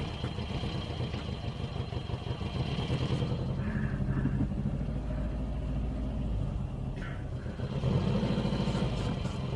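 A vehicle's engine running with road noise, heard from inside the cabin as it rolls slowly. The engine note shifts about three and a half seconds in and again near eight seconds.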